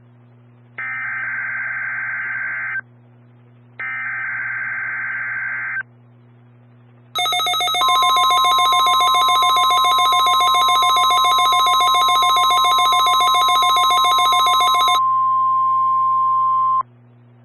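NOAA Weather Radio emergency alert test. Two harsh bursts of SAME digital header data, each about two seconds long, are followed by the 1050 Hz warning alarm tone, a steady single-pitch tone lasting about nine seconds. For its first seven seconds the tone is overlaid by a louder, rapidly pulsing alarm with many overtones, which cuts off before the steady tone does.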